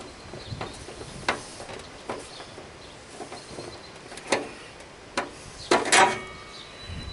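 Scattered sharp clicks and knocks of a lawn tractor hood and its grille being handled and fitted, a few single knocks and then a louder cluster about six seconds in.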